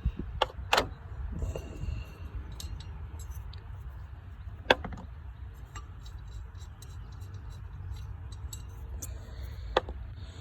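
Sharp metallic clinks of hand tools and bolts as the water pump pulley bolts are undone: a few scattered strikes, two near the start, the loudest about midway and one near the end. A low steady rumble runs underneath.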